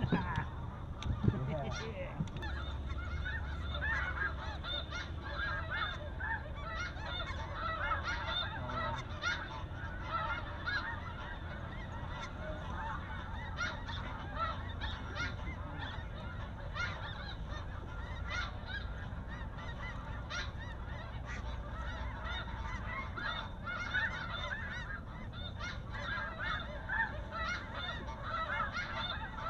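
A large flock of snow geese calling, a steady chorus of many overlapping short, high honks. One sharp knock sounds about a second in.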